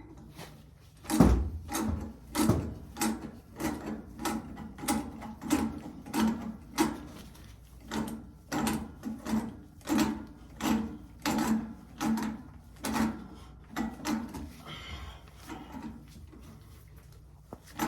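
Threaded pipe fitting being screwed on with a wrench: a steady run of short metal scraping strokes, about two a second, with a brief pause near the end.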